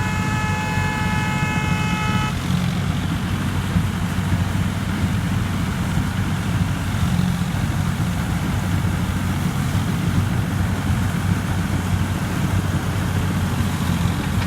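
Rice combine harvester engine running steadily with a low hum. A steady high-pitched tone sounds over it and stops about two seconds in.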